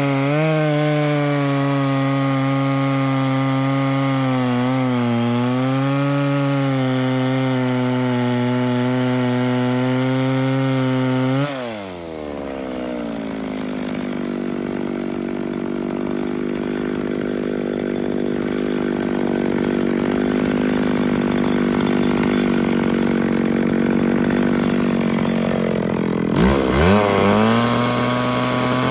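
Two-stroke engine of a McCulloch Pro Mac 650 chainsaw with an ungoverned carburettor, running at high revs while cutting through a log. The engine note wavers with the load. About eleven seconds in, the pitch drops sharply, then slowly climbs back. Near the end the revs dip briefly and rise straight back up to a high pitch.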